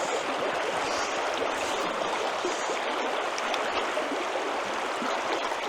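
Steady rushing of a river's flowing water, an even hiss with no breaks.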